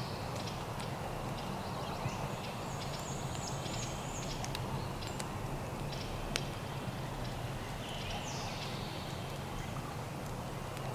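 Songbirds calling over steady outdoor background noise: a quick run of high chirps a few seconds in and a falling high-pitched call about eight seconds in, with a few scattered sharp clicks.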